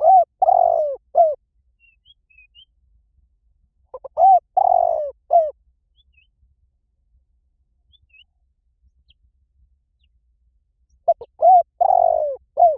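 Spotted dove cooing in three phrases a few seconds apart. Each phrase is a couple of short notes, a longer drawn-out coo and a short closing note. Faint high chirps of small birds come between the phrases.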